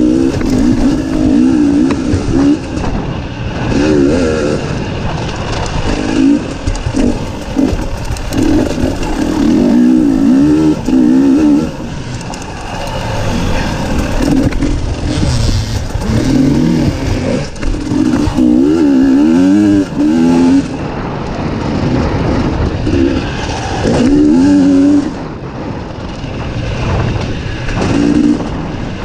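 Dirt bike engine revving up and down as the throttle is opened and closed on a trail ride, over steady rushing noise.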